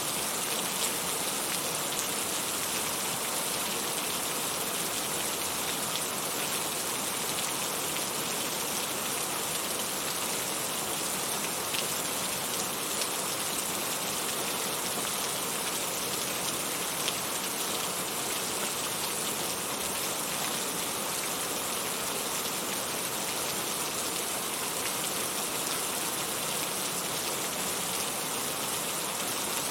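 Heavy rain falling steadily, a dense even hiss with a few faint individual drop ticks.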